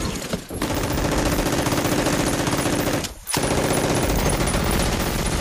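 Rapid automatic gunfire in two long bursts, broken by a short pause about three seconds in.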